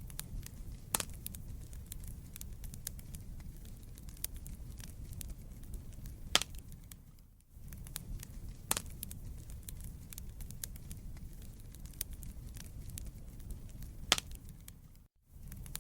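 Wood fire burning in a fireplace: a low steady rumble of flames with scattered sharp crackles and pops from the burning logs. The sound drops out briefly about halfway through and again near the end.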